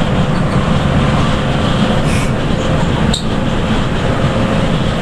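Cabin noise of a coach bus cruising on a highway: a steady drone from the engine and a rumble from the tyres on the road. There is a short click about three seconds in.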